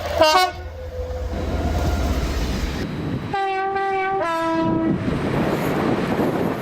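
Train horn: a short toot right at the start, then about three seconds in a two-note blast, a high note stepping down to a lower one. The steady noise of the train running past rises under the horn and carries on after it.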